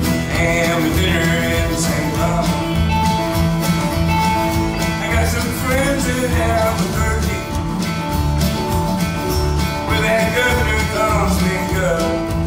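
Live country band playing an instrumental passage: acoustic guitar, electric guitar and upright bass keep a steady beat under a wavering fiddle lead line.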